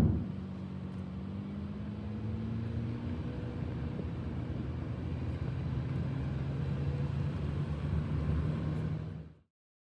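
An engine's steady drone, its pitch rising slowly in the first few seconds. It cuts off abruptly near the end.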